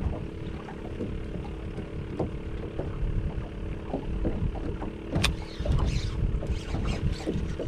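Steady low rumble of wind and water around a small fishing boat, with a single sharp click about five seconds in.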